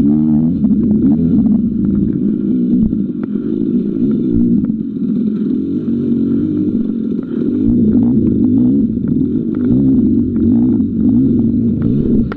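Dirt bike engine running hard, its pitch rising and falling again and again as the throttle is worked, with scattered knocks and clatter.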